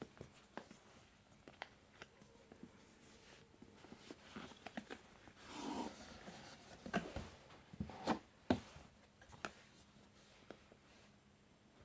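Handling of a phone's retail box and packaging: scattered light taps and clicks, a brief rustle about six seconds in, and a cluster of sharper clicks a couple of seconds later.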